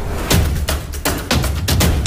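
Intro music with a steady heavy bass and sharp percussive hits, about three a second.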